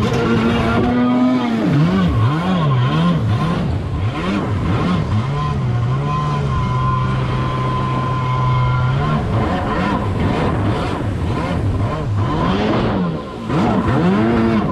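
1997 Yamaha Superjet stand-up jet ski's two-stroke engine with a factory-mod B pipe, revving up and down again and again as the throttle is worked through tight turns. It holds one steady pitch from about six to nine seconds in, then goes back to rising and falling revs, with water spray rushing underneath.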